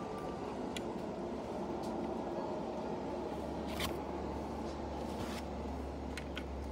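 A few light clicks and rustles as a die-cast model double-decker bus is handled and turned over in the hands, over steady background noise; a low hum comes in about halfway through.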